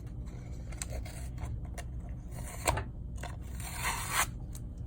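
Hands opening and handling treat-making supplies: a few small clicks, one sharp click near the middle, and a short scraping rustle near the end.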